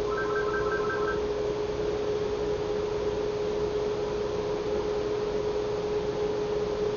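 Steady electrical hum at one pitch over a constant hiss. Within the first second a quick run of about six short electronic beeps sounds over it.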